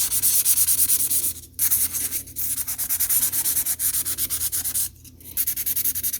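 A three-way buffer block rubbed rapidly back and forth over a derusted metal typewriter part, a dry scratchy scrubbing that polishes the dull surface. The strokes pause briefly about a second and a half in and again about five seconds in.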